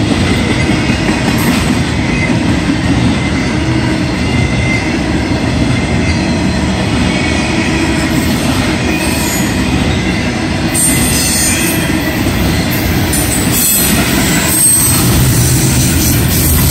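Intermodal freight train's double-stack well cars rolling past: a steady rumble of steel wheels on rail. A higher hiss joins about two-thirds of the way through.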